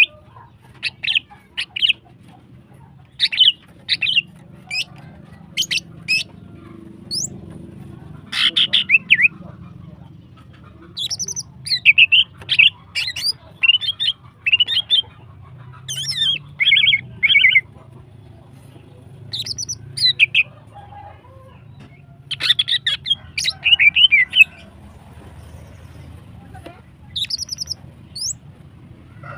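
Female green leafbird (cucak ijo) calling in short bursts of quick, sharp chirps, the bursts coming every second or two with short gaps. A faint low hum runs underneath.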